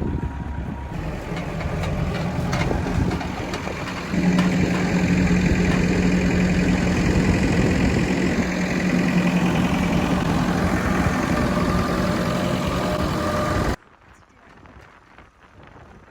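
Versatile 150 tractor's diesel engine running after a cold-weather start, with a steady hum that steps up and gets louder about four seconds in. The engine sound cuts off abruptly near the end, leaving only faint background noise.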